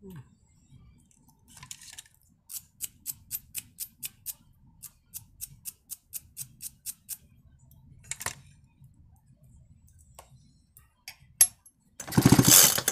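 A run of light, evenly spaced ticks, about three or four a second, then near the end the Forte chainsaw's recoil starter is pulled hard, cranking its two-stroke engine for a spark check.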